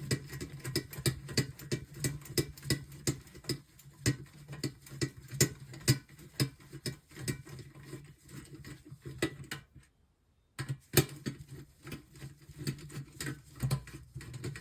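Nut driver unscrewing the two hex nut screws from a monitor's VGA board: a run of irregular small metallic clicks and ticks as the tool turns and the parts shift, breaking off briefly about ten seconds in.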